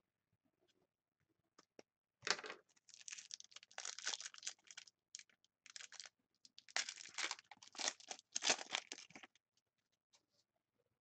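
A hockey card pack's wrapper being torn open and crinkled by hand, in irregular bursts lasting about seven seconds, starting about two seconds in.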